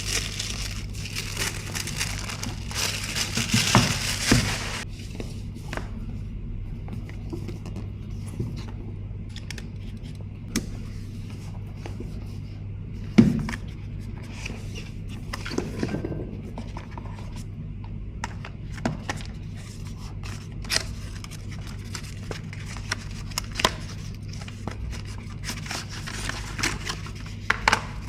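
Packaging being handled and opened: crinkling and tearing of wrapping for the first few seconds, then scattered clicks, taps and scrapes of cardboard and plastic.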